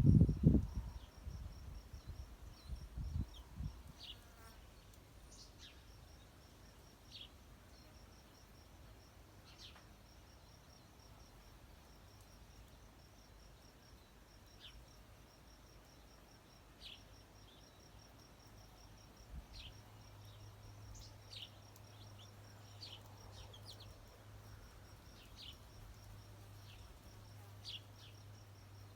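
A low buzzing in the first few seconds, then a steady, pulsing high insect trill with scattered short bird chip notes over it. A low steady hum comes in about two-thirds of the way through.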